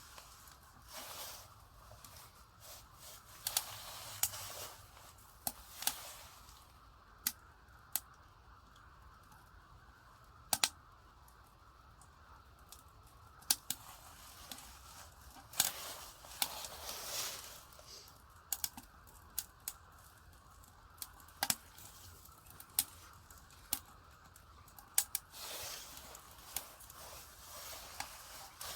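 Firewood crackling in a small ammo-can wood stove: sharp, irregular pops and clicks about once a second, with a few short rustling sounds.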